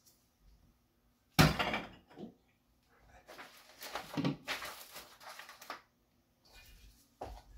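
Kitchen counter handling sounds while bread dough is being made. A sharp knock about a second and a half in is the loudest sound, followed shortly by a softer one. Then come a couple of seconds of rustling and scraping, and another knock near the end.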